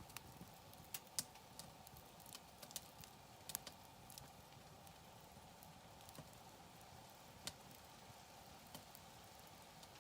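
Wood campfire crackling: scattered sharp pops and snaps, the loudest about a second in, over a faint steady background.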